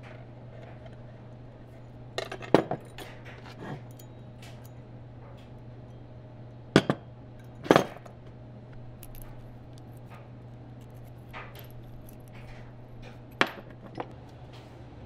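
Steel parts of an antique W&B railroad wrench clinking and knocking against each other and the wire hangers as they are handled on a wooden bench: a handful of sharp metal clinks in three bunches, the loudest about seven to eight seconds in.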